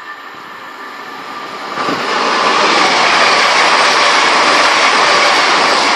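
East Midlands Trains Class 222 Meridian diesel multiple unit approaching and passing at speed. The rush of wheel and engine noise builds over the first two seconds, then holds loud and steady.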